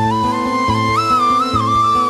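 Background music: a high melody stepping up and down over a bass line with a steady beat.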